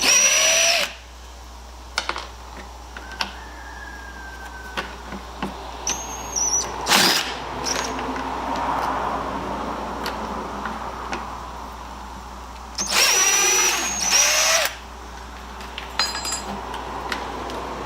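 Impact driver run in short, gently triggered bursts to back slotted screws out of wood, its high motor whine rising as it spins up, three times. Between the bursts, small clicks and tool handling.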